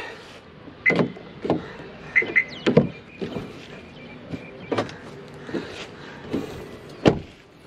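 Clicks and clunks of a Maruti Suzuki Vitara Brezza's door being unlatched and swung open, a string of separate knocks spread over several seconds, with a few short high beeps in the first half.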